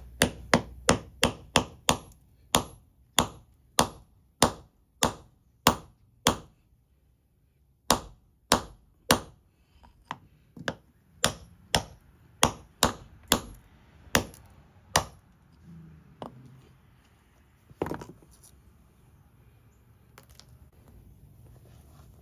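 Hammer striking a steel chisel set into a dolomite boulder to split it: a run of sharp ringing strikes, under two a second, that pauses briefly about six seconds in, resumes, then thins to a few scattered blows near the end.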